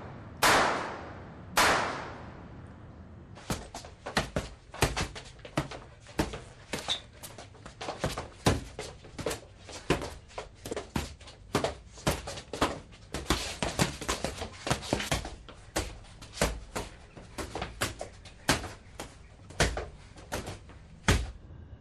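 Two loud sharp bangs that ring out in the first two seconds, then a long irregular run of short sharp knocks, several a second.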